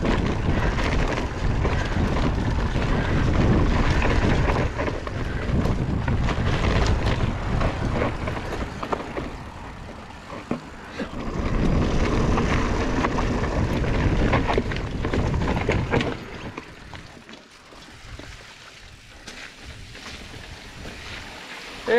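Wind rushing over the helmet- or bike-mounted camera microphone, and a Commencal Meta HT hardtail mountain bike rattling over a rough dirt trail, with many small knocks from the bike and tyres. The sound drops much quieter about sixteen seconds in.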